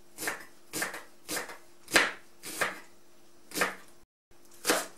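Kitchen knife slicing a leek on a plastic cutting board: seven crisp chops, one every half second to a second, the loudest about two seconds in.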